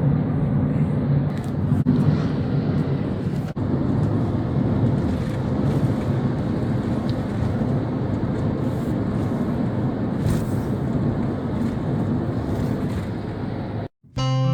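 Steady engine and road noise of a vehicle driving, with wind rushing over the microphone. It cuts off suddenly near the end, and acoustic guitar music begins.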